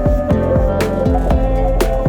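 Background music: plucked-string notes over a steady beat, with a sharp hit about once a second.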